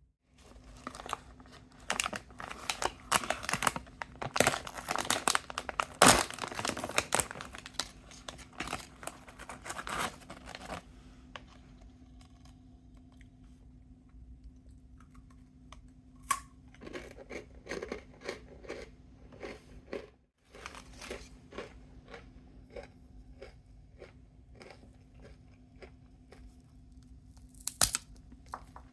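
Plastic snack packaging crinkling and being torn open, dense for about the first ten seconds, then sparser crinkles and clicks with one louder crinkle near the end.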